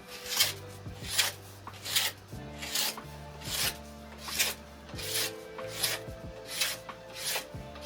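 Rhythmic rasping strokes, about ten of them, evenly spaced at a little more than one a second, like something being scraped or filed back and forth, over background music.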